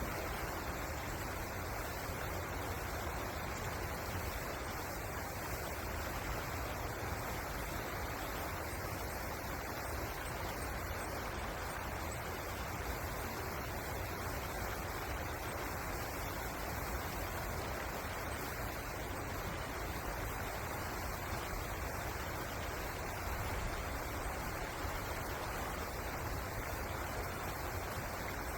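Steady rush of flowing river water, an even noise without breaks or changes.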